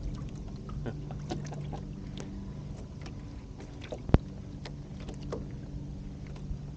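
Water lapping and splashing against a sailing kayak's hull as it moves, with scattered small clicks and knocks from the boat's fittings and one sharper knock about four seconds in. A steady low hum runs underneath.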